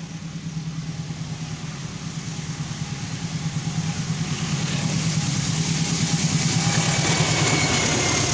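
Sawunggalih long-distance passenger train approaching and passing: a low pulsing engine rumble grows steadily louder, and about halfway in the hiss and rattle of wheels on the rails joins it as the coaches go by.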